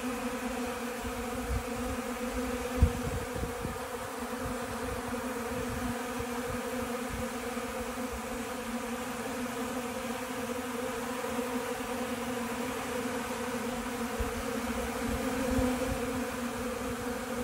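Many honey bees buzzing in flight: a steady, even hum. A few low knocks come through, the sharpest a single thump about three seconds in.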